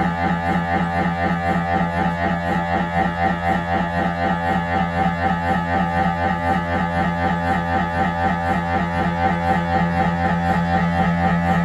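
Siemens Magnetom Avanto 1.5 T MRI scanner's gradient coils buzzing in a fast, steady rhythm during an imaging sequence of a head examination, with a strong droning pitch.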